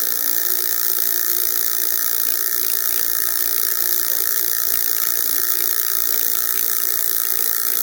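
Dspiae battery-powered paint mixer running, vibrating a paint bottle with a metal mixing rod rattling inside it: a steady, even buzzing rattle that cuts off at the end.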